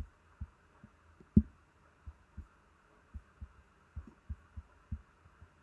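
Soft, irregularly spaced low thumps, about a dozen, one louder about a second and a half in, over a faint steady hiss: a computer mouse being clicked and moved on the desk while choosing a colour from a menu.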